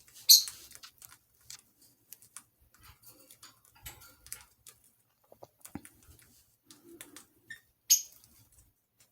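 Budgie moving about its cage: a scatter of light clicks and scratches, with two short shrill squawks, one just after the start and one near the end.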